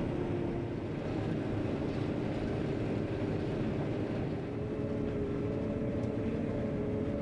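John Deere 9500 combine running steadily under load while harvesting corn, a constant drone with a steady hum.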